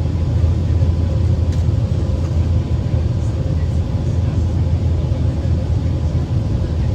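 Steady cabin drone of an Airbus A380 in flight: the low rumble of its four jet engines and the rush of air along the fuselage, heard from inside the passenger cabin, with a faint steady hum above it.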